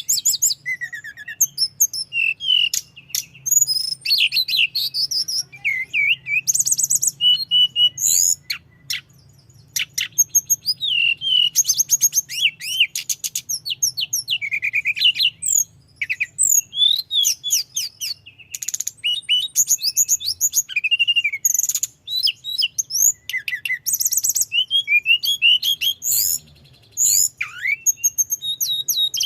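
A tledekan gunung songbird singing vigorously and without pause, running rapid varied phrases of trills, sliding whistles and sharp clicks together, with only brief breaks between bursts. A faint low hum sits underneath.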